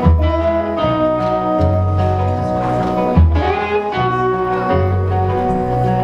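Instrumental introduction of a country-blues song played live by a small band: upright bass, acoustic guitar, electric guitar and piano. Bass notes recur on a steady pulse under ringing guitar and piano chords, with a few sliding guitar notes.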